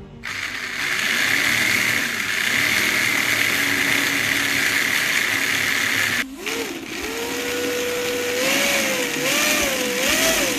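Brushless electric motors of a 3D-printed 1/8-scale RC car spinning the drivetrain with the wheels off the ground, a steady high-speed whir. After a short break about six seconds in, a motor whine holds one pitch and then rises and falls over and over as the throttle is blipped.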